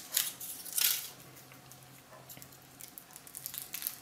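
Foil wrapper of a chocolate egg crinkling as it is peeled off by hand, with a couple of crackly rustles in the first second, then fainter rustling.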